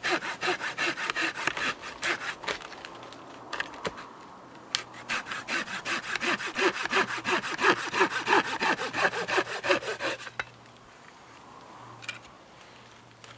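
A hand saw cutting a dry firewood branch into short pieces, with rapid back-and-forth strokes. The sawing pauses briefly about four seconds in and stops about ten seconds in.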